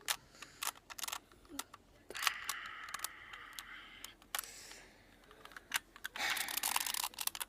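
Irregular plastic clicks of a Rubik's Cube's layers being twisted by hand, with two longer hissy stretches in between.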